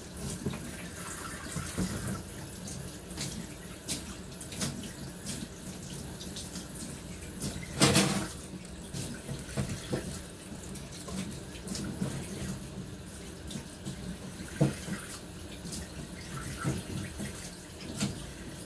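Kitchen tap running into a stainless-steel sink, with small knocks as hands work under the stream, and one louder knock about eight seconds in.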